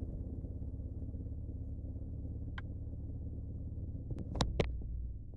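Saab 9-5's turbocharged 3.0-litre V6 running steadily with an even low throb, which the owner says is acting up. A faint click about halfway through and two louder sharp clicks near the end.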